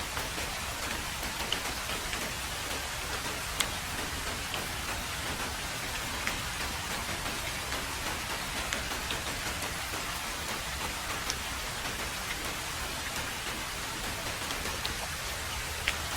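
Heavy rain falling steadily on a road: an even hiss with scattered sharp ticks of single drops landing close, the loudest about three and a half seconds in and again near the end.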